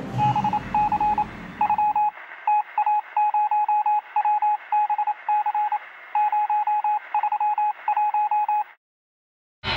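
A single-pitched electronic beep keyed on and off in irregular short and long pulses over steady radio-like hiss, like a coded radio signal. A low rumble under it fades out about two seconds in, and the signal cuts off suddenly near the end.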